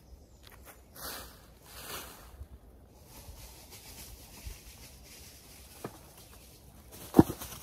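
Hand trowel scraping and rustling in soil and dry leaf litter while snowdrop clumps are dug and divided, with a single sharp knock near the end.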